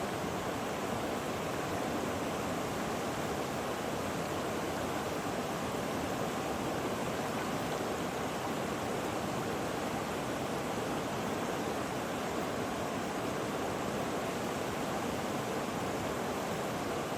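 Steady rushing water, an even unbroken hiss with no splashes or changes, used as white noise.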